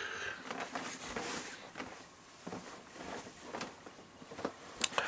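Faint handling noise: light rustling with a few soft knocks and clicks, the sharpest near the end.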